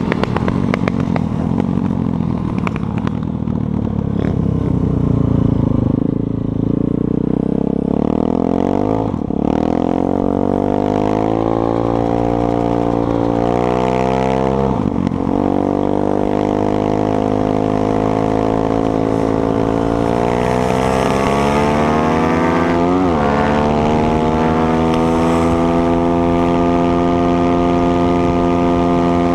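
Lifan 150cc air-cooled single-cylinder pit bike engine accelerating up through the gears. Its pitch climbs in each gear and drops sharply at three upshifts, the last about two-thirds of the way in, then holds steady at cruising speed.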